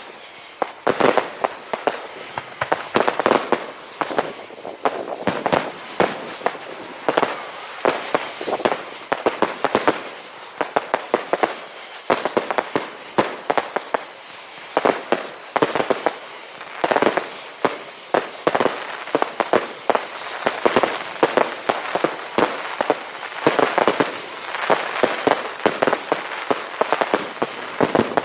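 Fireworks display: a dense, continuous run of sharp bangs and crackling bursts, several a second. Over them, short high whistles that fall slightly in pitch repeat again and again.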